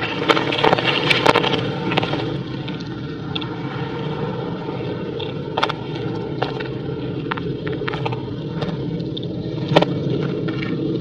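Woven bamboo fish trap being handled: scattered clicks, knocks and scrapes of the bamboo slats, busiest in the first couple of seconds, over a steady low rumble.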